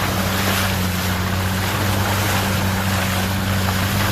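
Subaru Sambar mini truck's engine running at a steady pitch while the truck drives through mud and standing water, with a continuous rushing, splashing noise from the tyres.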